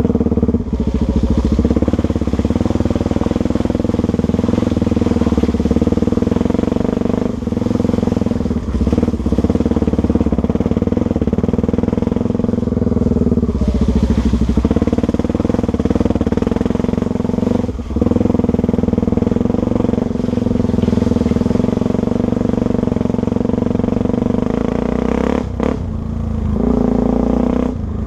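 Honda Tornado 250's single-cylinder four-stroke engine running hard at a fairly steady speed, with several brief dips where the engine speed drops and picks up again.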